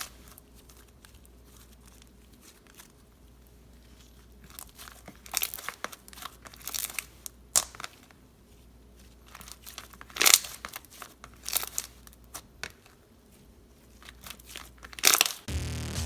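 Sticky shaving-cream slime being squished, stretched and poked by hand, making irregular crackles and pops in clusters with short quiet gaps between. Music starts right at the end.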